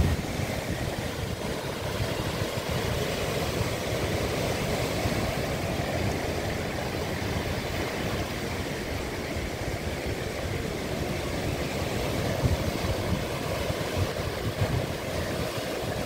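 Ocean surf breaking and washing over shoreline boulders: a steady rushing noise with a low rumble.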